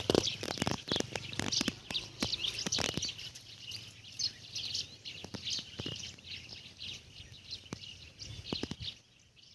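Many small birds chirping together in a steady chorus, with scattered sharp clicks and knocks during the first three seconds. The chirping drops away near the end.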